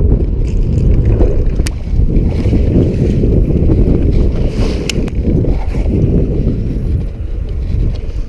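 Wind buffeting the action camera's microphone in a loud, continuous low rumble over choppy water, with a few sharp clicks.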